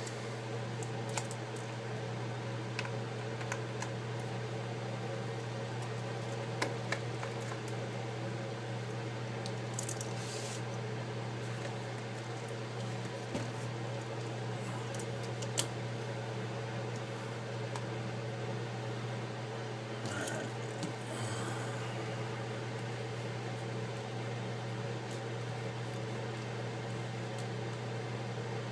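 A steady low hum, with a few faint, short clicks and taps of small tools against the device.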